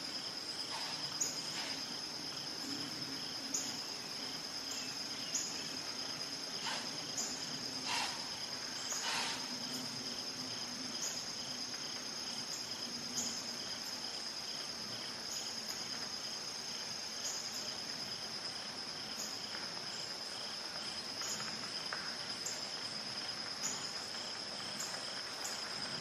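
Insect chorus: a steady high-pitched trill with a softer chirp pulsing about twice a second, and a couple of faint falling calls about eight and nine seconds in.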